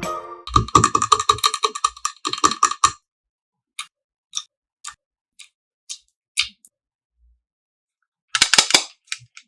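A quick run of clicks for the first few seconds, then single short ticks about two a second, and another quick cluster of clicks near the end.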